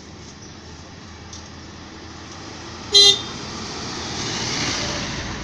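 A short, loud vehicle horn toot about three seconds in, followed by the noise of a vehicle passing, swelling and then fading.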